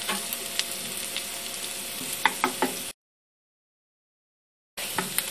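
Sliced onions sizzling in butter and oil in a non-stick frying pan as a wooden spoon stirs them, with light clicks and scrapes of the spoon against the pan. The onions are partway through softening and starting to brown. About three seconds in the sound cuts out completely for roughly two seconds, then the sizzling resumes.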